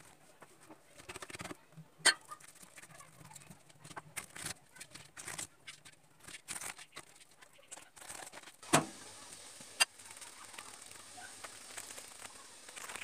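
Hands patting, stretching and folding oiled feteer meshaltet dough on a metal tray: a run of soft wet slaps and squelches, with a sharp knock about two seconds in and two more late on.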